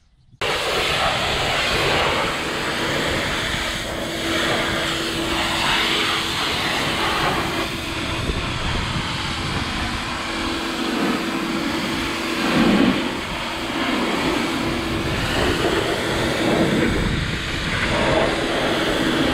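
Pressure washer running, its high-pressure jet spraying water against a tractor tyre and mudguard: a steady motor hum under a loud hiss of spray, starting suddenly just after the beginning.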